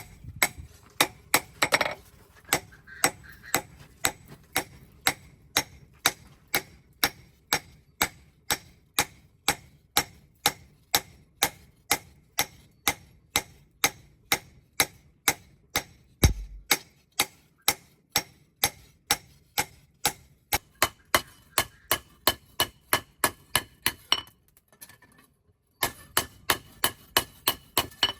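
Steady hammer blows on steel, about two strikes a second, each sharp with a short metallic ring, as the blade is forged. One heavier, deeper thud falls about halfway through, and the hammering pauses briefly near the end before resuming.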